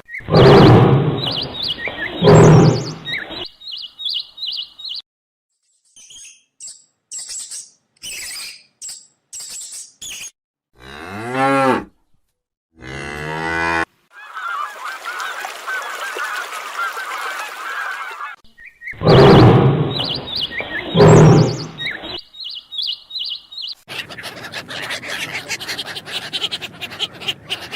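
A string of separate animal calls cut one after another, including cattle mooing loudly and geese honking, with short high chirps and a stretch of hissing noise in between.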